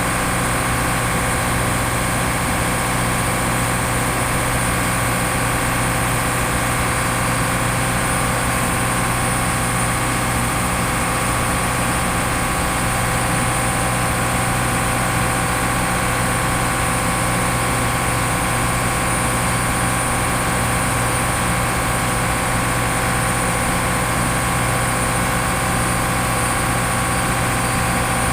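Shipboard machinery of a longline fishing vessel's freezer plant running with a steady, unbroken drone: a constant low hum and a higher tone over a hiss.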